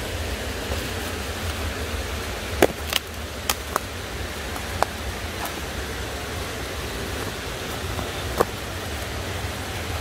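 Footsteps on loose rock and slag: a few sharp clinks, bunched a few seconds in and one more near the end, over a steady rushing background noise with a low rumble.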